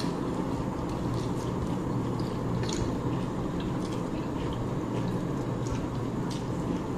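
Small wet chewing and mouth sounds of people eating a rice-and-curry meal by hand, scattered clicks and smacks over a steady low hum.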